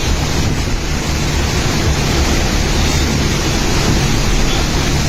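Loud, steady rushing noise over a constant low hum, with no distinct events.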